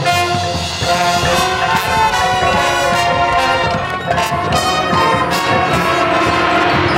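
Marching band playing, brass (trumpets and trombones) carrying the melody over drums.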